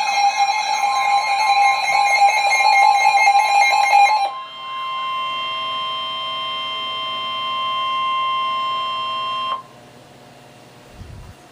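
Emergency Alert System warning tones: a warbling, siren-like alert sound that switches about four seconds in to a steady two-tone attention signal. The attention signal cuts off abruptly a couple of seconds before the end.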